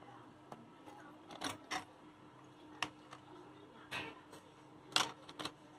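Scattered light clinks and scrapes of a knife and a steel spoon against a steel plate while a vegetable topping is spread over a pizza base, with a faint steady hum underneath.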